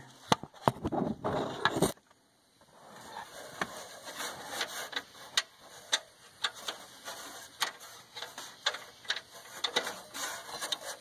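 Irregular small metallic clicks and ticks as the 17 mm hex nut of a diesel exhaust gas temperature sensor is unscrewed by hand from the exhaust, fingers working the nut in a tight spot. The sound cuts out briefly about two seconds in.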